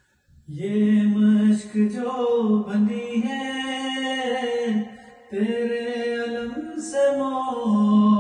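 A man's voice chanting an Urdu noha (Shia lament) with no instruments, in long held notes. The chant starts about half a second in and breaks off briefly about five seconds in.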